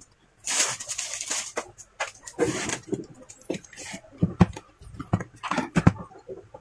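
Handling noise as the rebuilt laptop battery pack and the laptop are moved about: two stretches of scraping rustle, then several short, sharp knocks and clicks.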